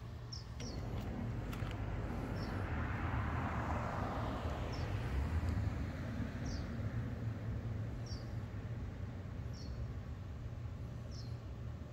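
Outdoor ambience: a small bird gives short high chirps about every second and a half, over a low rumble and the noise of a passing vehicle that swells in the middle and fades.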